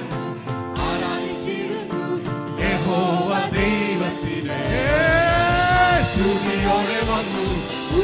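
Live Malayalam Christian worship song: a band with drums playing a steady beat under sung vocals, one voice holding a long note about five seconds in.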